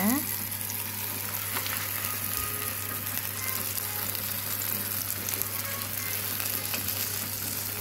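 Sausage slices and onion frying in oil on a hot flat griddle plate: a steady sizzling hiss with scattered small crackles, over a low steady hum.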